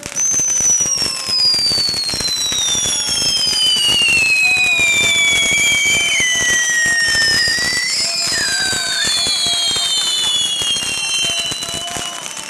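Several whistling fireworks going off at once: shrill whistles that slide slowly down in pitch over several seconds, overlapping one another, above a dense crackle of burning sparks. They start suddenly and loudly.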